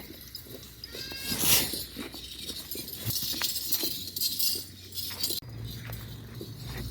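A Makhi Cheeni goat bleats once, a short rising call about a second and a half in, among scattered light knocks and shuffling.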